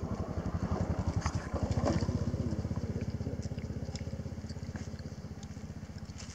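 An engine running with a rapid, even low throb. It grows louder up to about two seconds in, then slowly fades. A few faint clicks sit over it.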